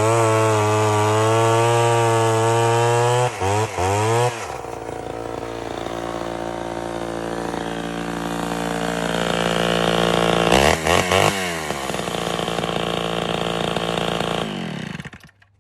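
Homelite Super XL two-stroke chainsaw running at high throttle, blipped a few times and dropped to idle about four seconds in. It is revved in quick blips again around eleven seconds, settles back to idle, and shuts off near the end.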